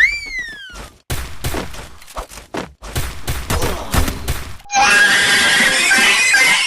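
A string of comic sound effects: a short whistle that shoots up in pitch and slides back down, then a run of knocks and thuds, then a loud, harsh, animal-like cry that fills the last couple of seconds.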